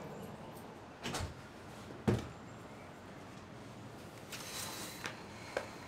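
Someone moving about a room and handling things: two knocks or thumps, the second about two seconds in and the loudest, then a brief rustle and two light clicks near the end.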